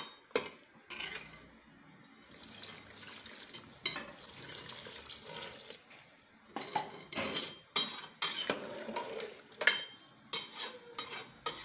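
Water poured into a pot of curry for a few seconds. From about halfway in, a perforated metal spoon stirs and knocks against the sides of the metal pot in a run of sharp clicks.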